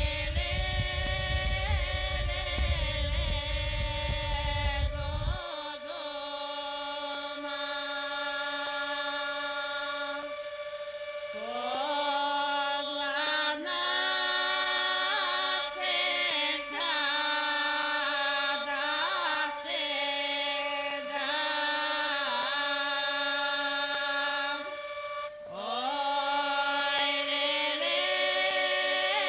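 Traditional Macedonian harvest song: voices singing long, ornamented held notes over a steady drone. A low rumble underlies the first five seconds and cuts off suddenly.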